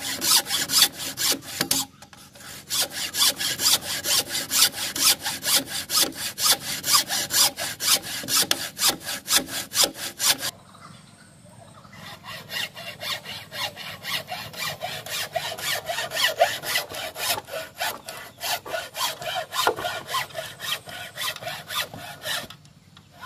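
Hand saw cutting through bamboo in steady, even back-and-forth strokes. It pauses briefly about two seconds in and again for about a second and a half near the middle, then stops shortly before the end.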